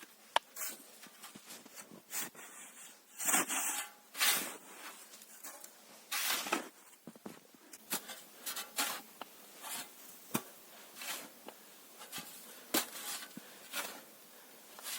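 Irregular rustling and scraping, with a few sharp clicks and knocks scattered among them: hand-work or handling noise.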